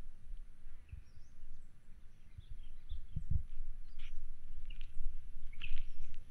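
Small birds chirping and calling in scattered short notes from the scrub, over a low rumble, with a dull low thump about three seconds in.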